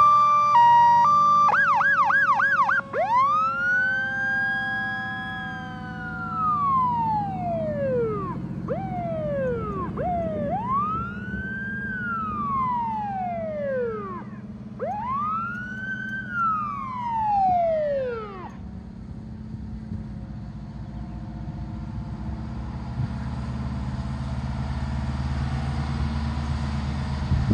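Siren of an old fire truck pulling away: a short burst of fast yelps, then three long wails rising and falling in pitch, stopping about two-thirds of the way through. The truck's engine keeps running underneath as a low rumble.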